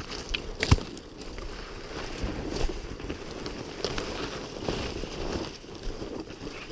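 Dry reeds and bare shrub twigs rustling and crackling against clothing and the fishing rod as someone pushes through a thicket on foot, with a sharp snap about a second in.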